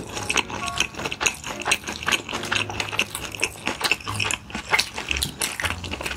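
Close-miked eating sounds: a person chewing, with dense, irregular crisp crunching clicks.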